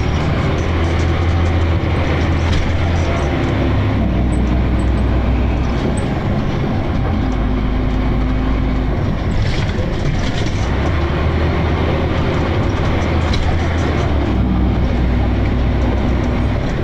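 Dennis Arrow double-decker bus heard from inside while it is moving: the engine running with its note shifting several times, and the mechanical grinding and rattling that the bus is known for.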